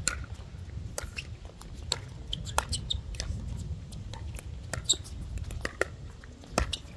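Pickleball rally: a string of sharp pops at irregular intervals as paddles strike the plastic ball and it bounces on the hard court, over wind rumbling on the microphone.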